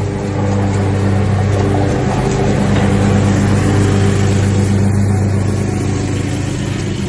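Riding lawn mower's engine running steadily at a constant speed.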